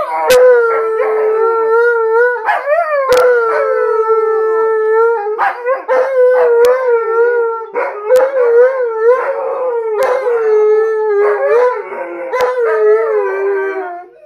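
Alaskan malamutes howling together in long, wavering howls that rise and fall in pitch and overlap. A few sharp clicks cut in now and then.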